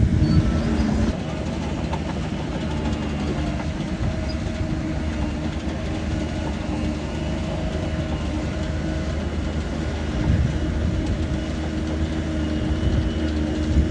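Shantui DH17 bulldozer's diesel engine running steadily, with a dense clanking rattle underneath, the kind of clatter a dozer's steel tracks make.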